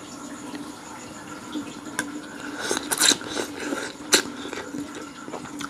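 A person eating noodles with a fork from a ceramic bowl: a few sharp clicks of the fork on the bowl, about two and four seconds in, and a wet slurp of noodles between them.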